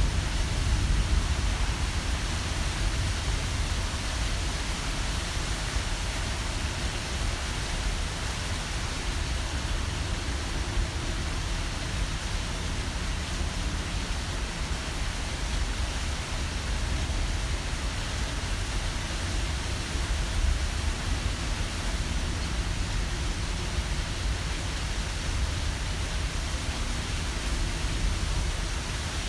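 Thunderstorm rain falling steadily, with a constant deep rumble underneath; a little louder in the first second or so, then even throughout.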